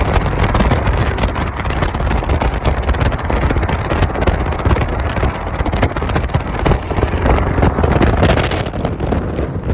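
Car engine running loud while driving, with wind rushing over the microphone.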